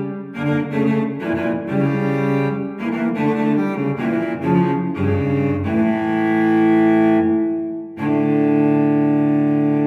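Background music on bowed low strings: a run of short notes, then a long held note that fades away, and a new sustained chord about eight seconds in.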